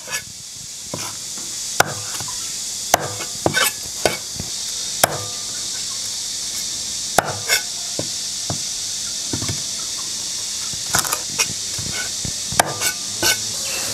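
Cleaver blade tapping and chopping on a thick wooden chopping board as whole shrimp are trimmed: irregular sharp knocks, some single and some in quick pairs, over a steady high hiss.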